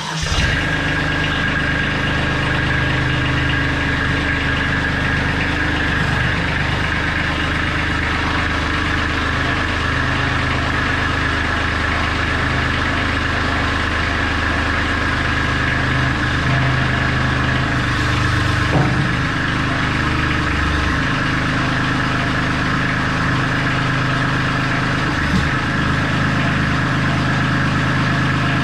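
Kubota B2650 compact tractor's three-cylinder diesel engine running steadily at idle, its note shifting a few times as the loader hydraulics are worked to lower the front loader onto its stands.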